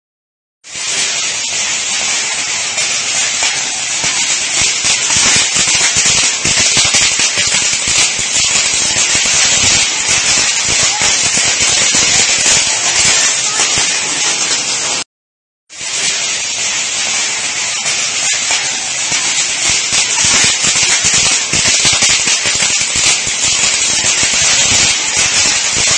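A shelf display of consumer fireworks burning and going off: dense, continuous crackling and hissing with rapid popping. It starts about a second in, breaks off for under a second just past the middle, then carries on.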